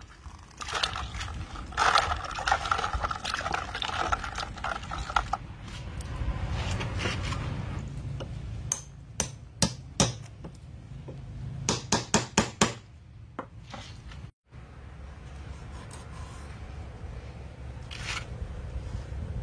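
Eels and ice shifting in a basin of water, then an eel being worked on a wooden slat bench: a knife rubbing and scraping on the slimy skin and the wood. About halfway through come two quick runs of sharp knocks against the wood.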